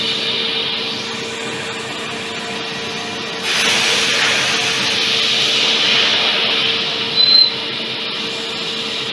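CNC machining centre drilling holes in a metal plate with a long twist drill: a steady machine hum with a constant whine. A louder hissing rush comes in about three and a half seconds in and lasts to about seven seconds, ending with a brief high squeal.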